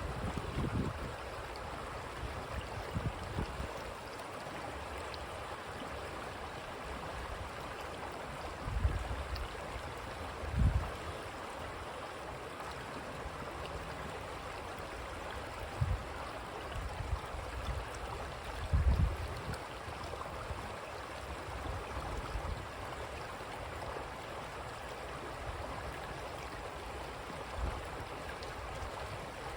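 Creek water running and burbling steadily, with several brief low rumbles of wind buffeting the microphone.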